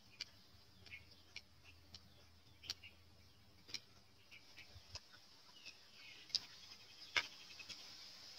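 Quiet eating sounds: about a dozen small, irregular clicks and smacks of chewing and chopsticks against a plate, the loudest about seven seconds in, over a faint steady high hiss.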